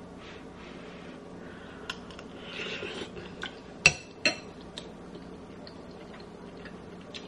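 A metal utensil clinking and scraping against a metal pan while eating: a few light taps, then two sharper ringing clinks close together about four seconds in. A faint steady hum runs underneath.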